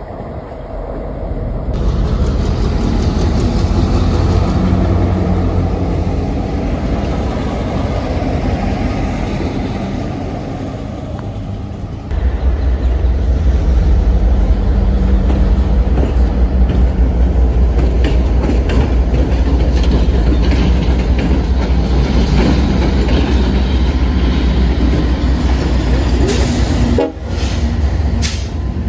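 A train passing close by: a loud, steady rumble with rail clatter, changing abruptly about two seconds in and again about twelve seconds in.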